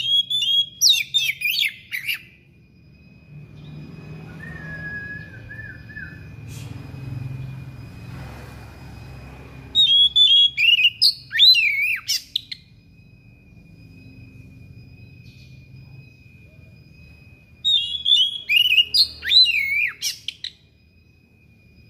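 Oriental magpie-robin (kacer) singing its sharp, insistent song in three loud bursts of quick, varied whistled notes, each two to three seconds long: one at the start, one about ten seconds in and one near the end. A steady high tone runs underneath.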